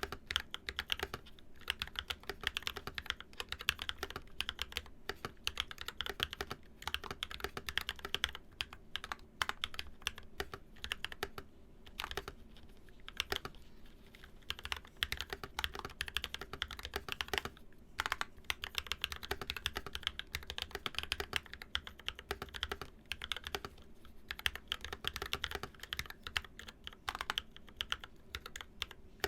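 Continuous fast typing on a Novelkeys NK65 mechanical keyboard fitted with silicone inserts, lubed Zykos tactile frankenswitches (Glorious Panda top and stem, Zealio v2 bottom, 67 g springs) and Infinikey keycaps: a dense stream of keystrokes with a few short pauses.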